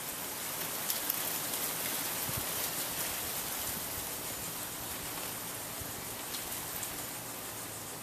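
1979 Casablanca Columbia II ceiling fan running at speed: a steady hiss of air from the spinning blades over a faint low motor hum, with a couple of small ticks about a second in.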